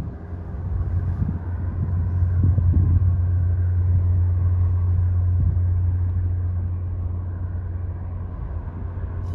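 Steady low rumble from the lake freighter John G. Munson under way, a deep hum with fainter overtones that slowly eases as the ship draws away.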